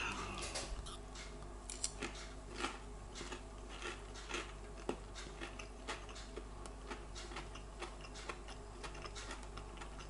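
Someone chewing a crispy breaded fish burger: soft, irregular crunches and mouth clicks, over a faint steady low hum.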